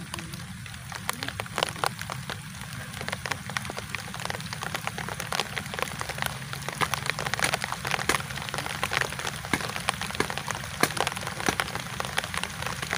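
Rain falling on a canal's water surface and the vegetation around it: a steady patter dotted with many sharp, close raindrop ticks that come thicker after a few seconds.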